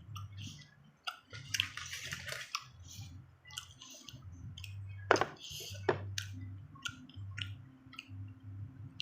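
Close-miked eating sounds: chewing of crunchy raw cucumber and young green mango, with sharp mouth clicks and short wet, squishy bursts about two seconds in and again around five seconds.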